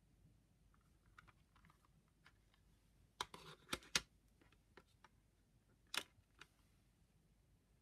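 Plastic CD jewel case being handled and opened: faint ticks, then a cluster of sharp clicks with a short scrape a little past three seconds in as the lid swings open. About six seconds in, a sharp click as the disc is pressed off the case's centre hub, with a smaller click just after.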